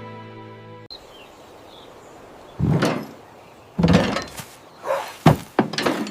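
A held music chord fades out in the first second. Then comes quiet background noise with a series of irregular dull thumps and knocks, the loudest near the end.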